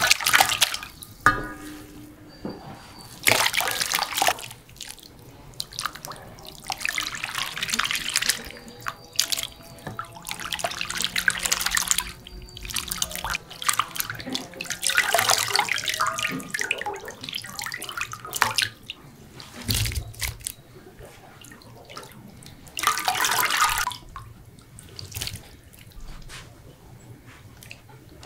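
Water pouring and splashing in repeated bursts of a second or two, as when rinsing or washing food or dishes, with quieter pauses between.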